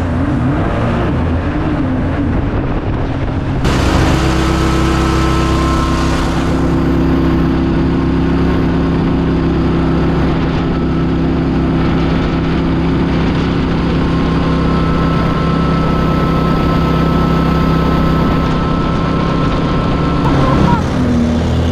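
Boat engine running steadily at high speed, with a rush of wind and water spray. The engine tone changes abruptly about four seconds in and again near the end.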